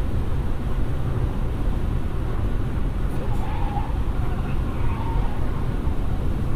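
Steady low road and wind rumble of a car driving at highway speed, picked up by a dash cam inside the car.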